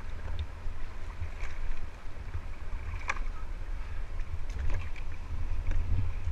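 Steady low rumble on an action camera's microphone, with scattered sharp knocks, the strongest about three seconds in and a few more near five seconds: a plastic whitewater kayak and its paddle bumping against rocks at the river's edge.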